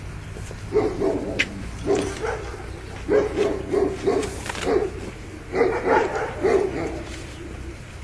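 A dog barking repeatedly, in short bouts of a few barks about every second or so.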